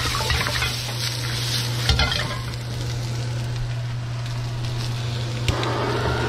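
Vegetables sizzling in hot oil in a carbon-steel wok, stirred with a wooden spatula, with a sharp knock about two seconds in. About five and a half seconds in, a click is followed by a steady roar from a butane blowtorch lighting.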